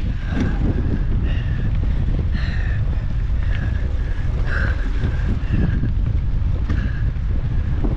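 Wind buffeting a handlebar-mounted action camera and the rumble of a mountain bike descending a trail. Short high squeals recur irregularly about once a second.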